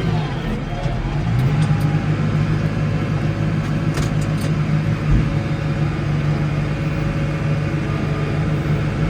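Case 115U tractor's diesel engine running steadily under work; its pitch sags just after the start and climbs back about a second in. A few light clicks about four seconds in.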